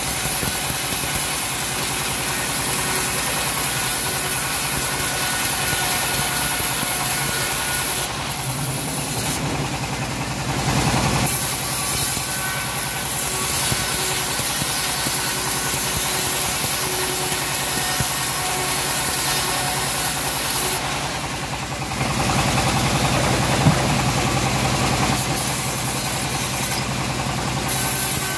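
Home-assembled band saw mill running steadily with an engine-like hum, its blade sawing lengthwise through a teak board with a high hiss. The hiss lets up briefly twice, about a third of the way in and again past two-thirds.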